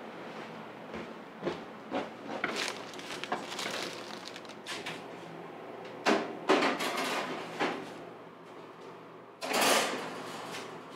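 Knocks and clatter of baking trays and kitchen utensils as freshly baked bagels are handled, loudest in a cluster about six seconds in, with a longer sliding scrape near the end.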